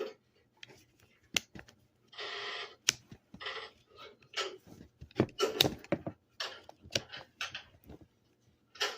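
Handling noise from a cordless drill being worked on by hand: a series of sharp clicks and knocks, with two short rasping noises about two and three and a half seconds in.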